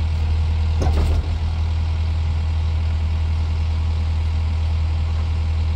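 Diesel engine of a Takeuchi TL10V2 compact track loader running steadily, a deep even hum, with a brief short sound about a second in.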